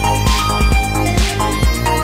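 Electronic music with a steady, driving drum beat under sustained synthesizer tones.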